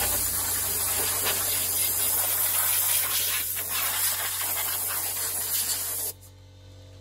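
Compressed-air blow gun blasting air through a PC case: a loud, steady hiss that wavers as the nozzle is moved, then cuts off suddenly about six seconds in.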